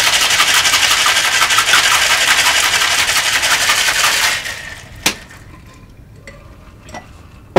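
Cocktail shaker full of ice and margarita mix being shaken hard: a fast, loud, steady rattle of ice that stops about four and a half seconds in. A sharp knock follows about five seconds in, and another near the end.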